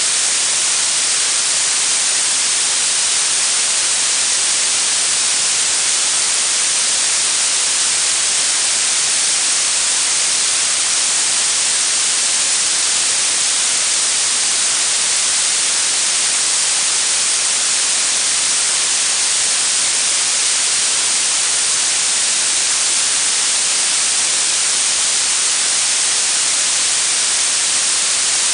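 Blue noise: a steady, unbroken synthetic hiss, loudest in the high pitches and thin in the lows.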